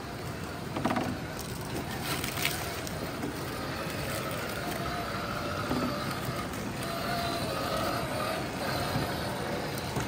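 Axial SCX6 Honcho 1/6-scale RC crawler's electric motor and geared drivetrain whining at crawling speed, the pitch wavering as it works over rocks. There are a few knocks of the tyres and chassis on stone about one and two and a half seconds in.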